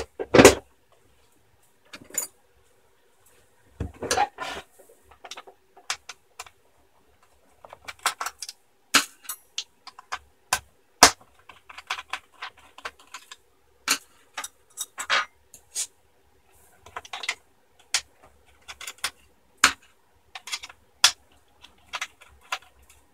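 Irregular small clicks and taps of hand work on a laptop's plastic screen bezel as the small screws either side of it are undone with a screwdriver and the parts are handled.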